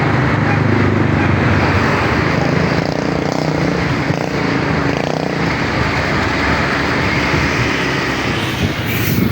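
Road traffic with a motor vehicle's engine running close: a low engine drone over steady road noise, strongest in the first second or so, and a short burst of noise just before the end.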